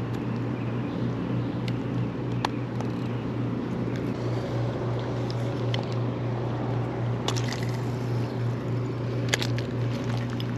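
A steady low machine hum, with a few sharp clicks over it.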